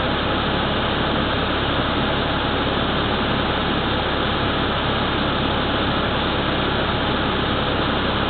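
Bus engine idling, heard from inside the passenger cabin: a steady, unchanging drone with a hiss of noise over it.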